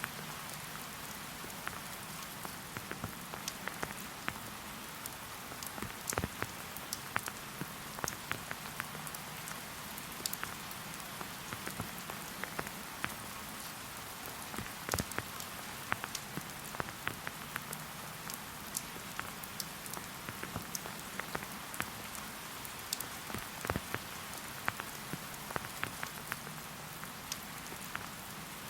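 Steady rain falling: an even hiss with many separate drops ticking sharply close by.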